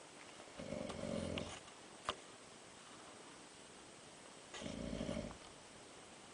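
A man snoring in his sleep: two snores about four seconds apart, each about a second long, with a sharp click between them.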